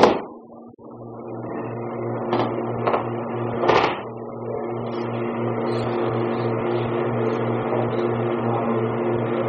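A loud thud as a body hits the mat in an aikido breakfall from a throw, right at the start. A few shorter slaps and thumps on the mat follow between about two and four seconds in, the last of them the loudest.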